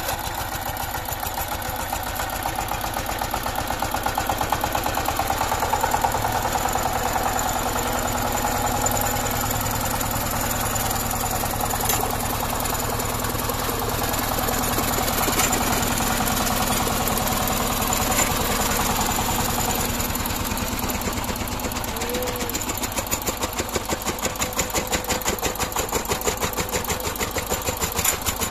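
The single-cylinder diesel engine of a two-wheel power tiller runs steadily with a fast, even chugging while the machine tills the field. The beat of each firing stands out more plainly near the end.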